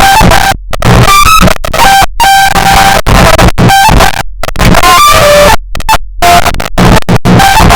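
Heavily distorted, clipped 'earrape' music: a melody in an Arabic style buried in harsh noise at full loudness, chopped by several sudden short gaps of silence.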